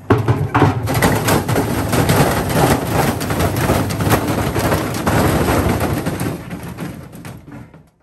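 Beko front-loading washing machine on a fast spin with a heavy cloth-wrapped load thrown into its drum. The unbalanced drum bangs violently and rapidly against the cabinet as the machine rocks and walks across the concrete. The banging dies away near the end as the drum winds down, having been knocked off one of its suspension springs.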